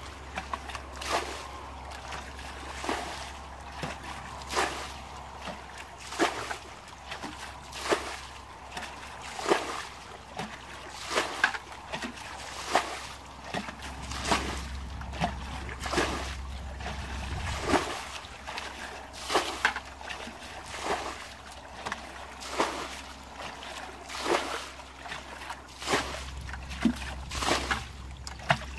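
Water being bailed out of a shallow muddy ditch with a bucket: each scoop and throw makes a splash, in an even rhythm of about one every second and a half to two seconds.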